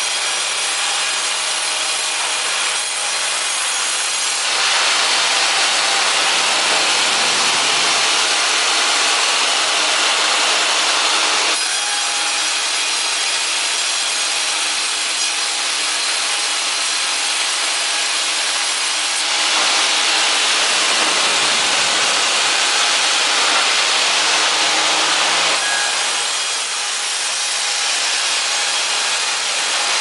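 A band sawmill's blade running and sawing lengthwise through a log, a steady rasping whine of blade in wood. It grows louder twice for about six or seven seconds, around five seconds in and again around twenty seconds in.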